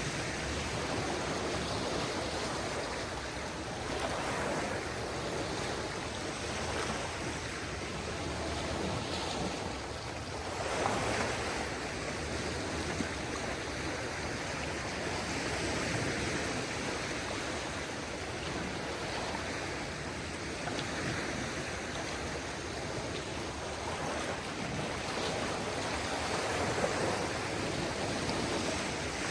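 Small waves of a calm sea washing on the shore: a steady wash that swells and eases every few seconds.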